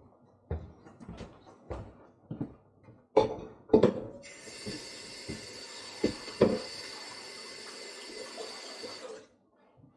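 A few knocks and clatters of kitchen things, then a kitchen tap running water into the sink for about five seconds before it is turned off.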